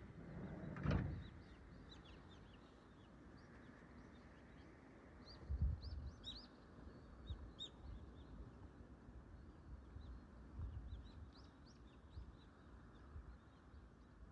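Small birds chirping, with many short high calls scattered throughout over a steady low background hiss. There is a knock about a second in and a few low thumps around the middle.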